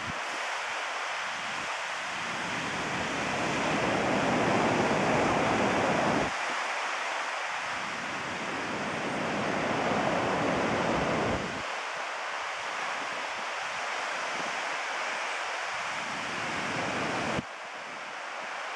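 Steady wash of ocean surf breaking on sea stacks and the shore below. Wind buffets the microphone, swelling twice and cutting off sharply each time.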